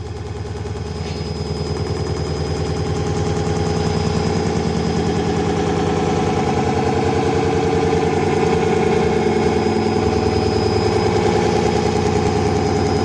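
Rapidly pulsing, buzzing shortwave radio signal received on home-built crystal radio sets and played through loudspeakers, with a thin steady high tone above it. It fades up over the first few seconds and then holds steady; the uploader takes it for a HAARP transmission.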